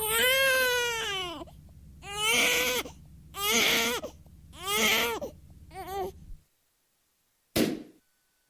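Stock sound effect of a baby crying: five wailing cries with short gaps between them. A brief, separate noise burst follows near the end.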